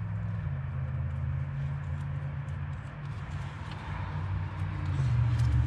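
An engine running steadily with a low, even hum, growing louder about five seconds in.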